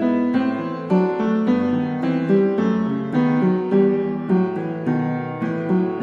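Background piano music: slow melodic notes struck about once a second, each ringing and then fading.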